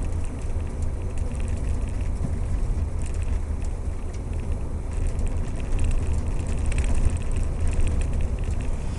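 Steady low rumble of a 1960 Chrysler Saratoga's engine and road noise, heard inside the cabin while driving.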